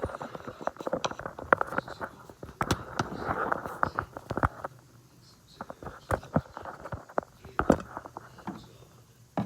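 Rustling and many sharp clicks and knocks of parts being handled by hand, busy for about the first half, then only scattered clicks.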